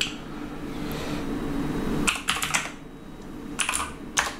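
Typing on a computer keyboard: a few quick runs of keystrokes in the second half as a command is entered. Before them, a steady rushing noise swells for about two seconds and cuts off suddenly.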